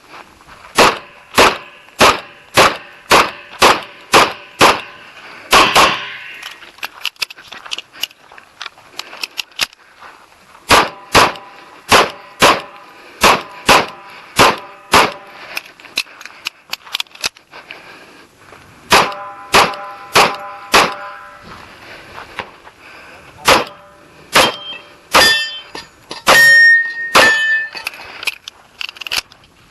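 Handgun shots in fast strings of roughly two shots a second, broken by pauses of a few seconds. A ringing metallic tone hangs after several of the shots in the later strings.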